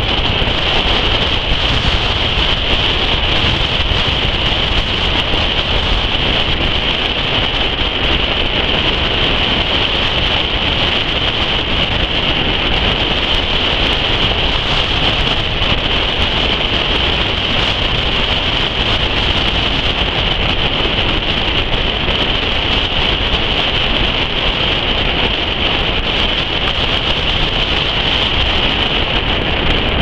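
Steady wind rush and road noise from a car driving along a dirt road, with wind blowing on the microphone and an unbroken hiss that does not let up.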